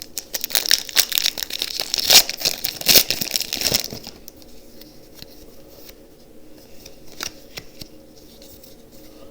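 Foil booster-pack wrapper crinkling and tearing open in a dense crackle for about four seconds. After that only a few faint light ticks remain.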